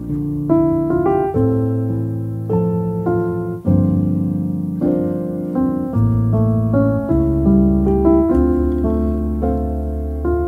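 Background piano music: chords and melody notes struck every half second or so and left to ring out.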